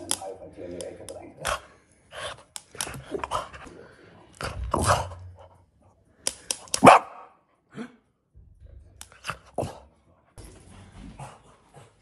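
French bulldog puppy with grill tongs in its mouth making odd, monkey-like cries, short yelps and whines in a string of separate bursts, the loudest about seven seconds in, with sharp clicks between them.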